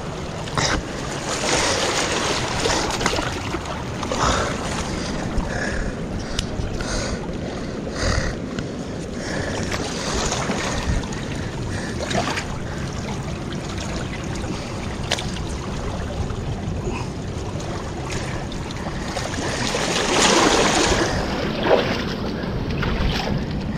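Shallow seawater washing and splashing over lava rocks at the shoreline, a steady rushing wash that swells near the end, with wind on the microphone and a few scattered knocks and clicks.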